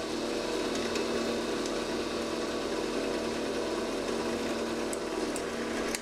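Drill press motor running with a steady hum as a small bit spinning in its chuck cuts a spacer out of a thin scrap plastic strip.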